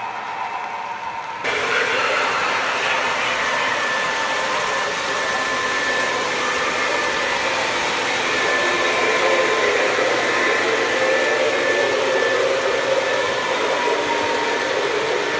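Three-rail model trains running on the layout: a steady whir of motors and wheels rolling on the track with a faint high whine, getting louder about a second and a half in.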